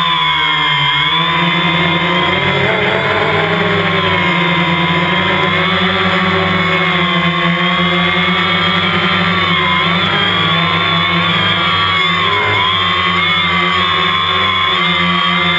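DJI Phantom quadcopter's motors and propellers buzzing close to the microphone, a steady drone of several pitches that waver up and down together as the motor speeds change while it hovers and manoeuvres.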